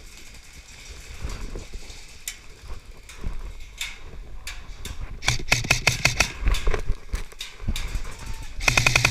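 Electric airsoft M4 firing two short full-auto bursts, a rapid rattle of evenly spaced clicks about five seconds in and again near the end. The magazine is not feeding at this point.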